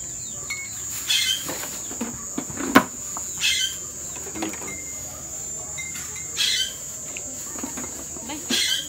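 Ice being put onto bottled beer in a plastic tub: short rustles of a plastic bag of ice every couple of seconds, and one sharp glass clink about three seconds in.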